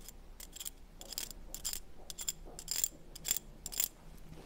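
Metal tweezers drawn lightly across the faceted stones of a lemon-yellow Bohemian crystal brooch, giving a run of about a dozen faint, high, glassy clinks at uneven intervals: the 'singing' of the crystal.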